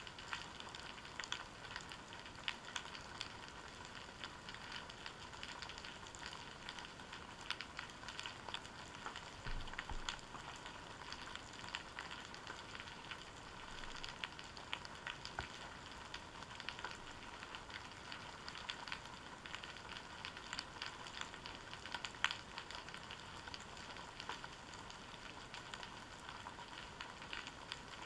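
Constant fine underwater crackling and clicking, heard through a GoPro's waterproof housing resting on the seabed, with a soft low bump about ten seconds in and one sharper click near twenty-two seconds.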